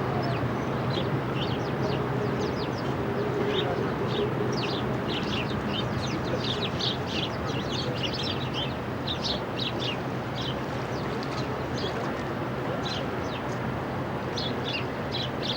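Many small birds chirping busily in quick, high, short calls, over a steady background rumble and low hum of street noise.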